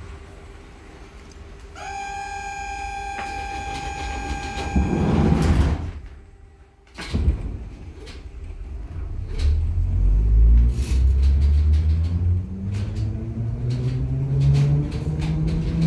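H5 HÉV suburban electric train at a stop: a steady door-warning tone sounds for about three and a half seconds, then the doors close with a rush of air and a knock. The traction motors then whine, rising steadily in pitch as the train pulls away, with scattered clicks from the wheels and rails.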